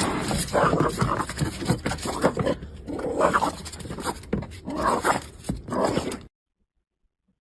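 A dog vocalising in a run of loud, rough bursts about once a second. The sound cuts off abruptly about six seconds in.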